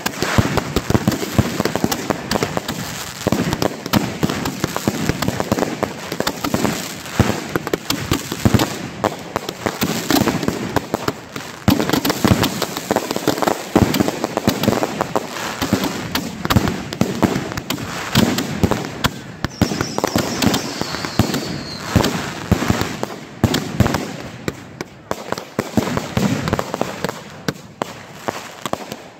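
Consumer firework cakes and mortar racks firing a finale barrage at close range: a dense, unbroken stream of launches, bangs and crackle. A short falling whistle cuts through about two-thirds of the way in, and the barrage thins out near the end.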